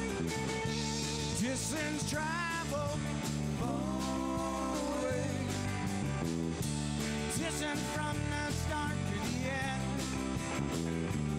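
Live rock band playing: electric guitars, bass guitar and drums with a steady beat, with a lead line that bends and wavers in pitch.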